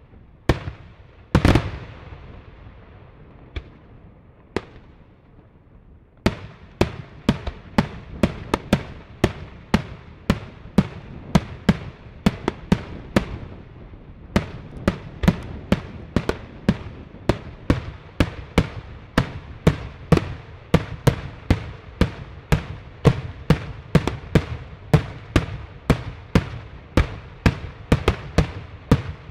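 Daytime aerial fireworks shells bursting overhead: a few loud bangs in the first second or two, then from about six seconds in a fast, even run of sharp bangs, about two a second.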